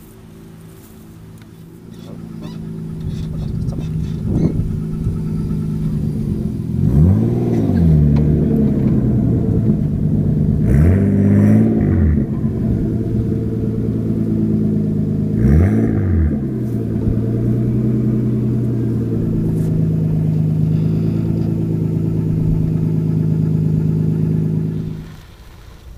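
Tuned Nissan Skyline's engine running loudly at idle and blipped three times, each rev rising and falling in pitch, then settling back to a steady idle. The sound drops away suddenly near the end.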